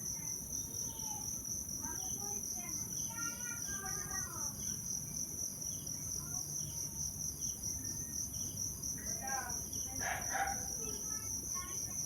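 Insects trilling in a steady, evenly pulsing high-pitched chorus, with scattered short chirps and falling calls over it.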